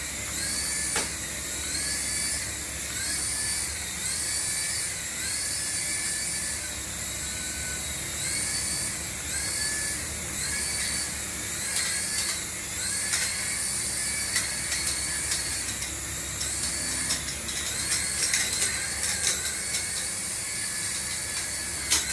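Small battery-powered toy motor whining at a high pitch, its whine swelling and easing in a repeating cycle about once a second. Light clicks and rattles join in over the second half.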